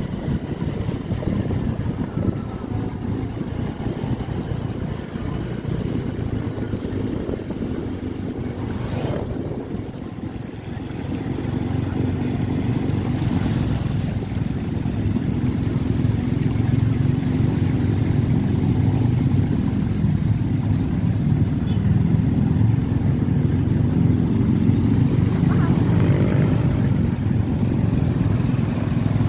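A motor vehicle's engine running steadily while driving through floodwater, with water washing around it; it grows louder about a third of the way in.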